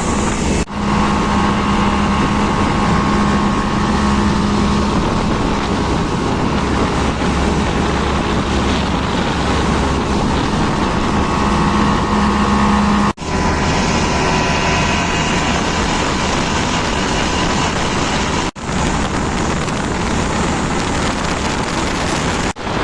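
Motorboat engine running steadily under way, a constant hum over the rush of wind and water. The sound breaks off for an instant a few times.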